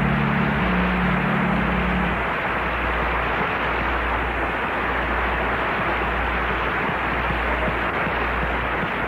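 Studio audience applauding at the end of a song. The song's last held chord is still audible for about two seconds, under the even, crackling clapping.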